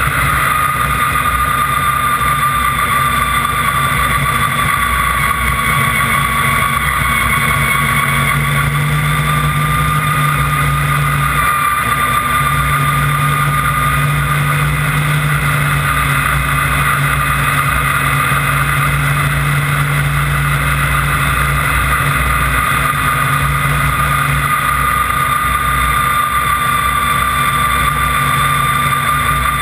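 Snowmobile engine running steadily at speed, a constant low engine drone with a steady high whine over it.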